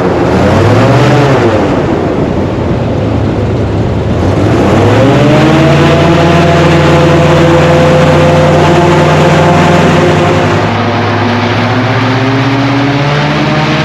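Airboat engine and large caged propeller running at speed. The pitch wavers, sags a couple of seconds in, then climbs steeply as the throttle opens about five seconds in and holds steady, easing slightly near the end.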